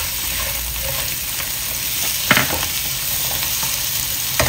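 Shrimp sizzling in hot oil in a non-stick wok as they are stir-fried, a steady hiss, with the utensil knocking sharply against the pan twice, about two seconds in and near the end.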